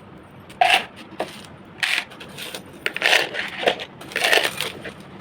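Plastic items being handled, crinkling and clattering in about five short bursts.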